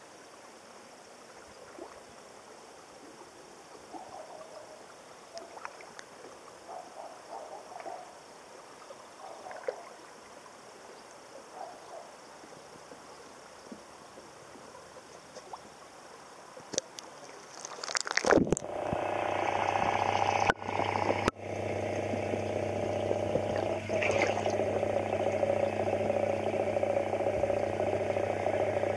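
Faint outdoor pond ambience with small scattered sounds, then a loud sharp disturbance about two-thirds of the way through as the waterproof Olympus TG-2 camera is put under the water. After that, the sound is a louder, muffled underwater drone with a steady low hum.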